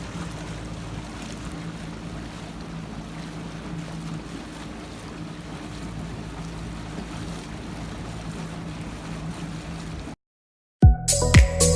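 Steady engine drone with wind and water noise, like a boat running on the lake. It cuts off abruptly about ten seconds in, and electronic music with a beat starts near the end.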